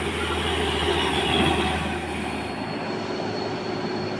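Traffic at a steep hairpin bend: heavy trucks and cars passing, with a steady mix of engine and tyre noise. The low hum drops away about three seconds in, and a fainter steady whine carries on.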